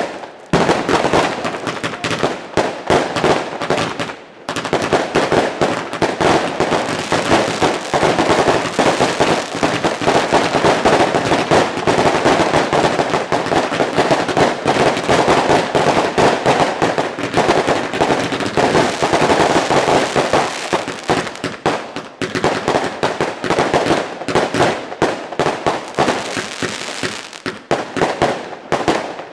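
Fireworks and firecrackers going off in a dense, continuous run of rapid bangs and crackles, with a brief pause about four seconds in and thinning out near the end.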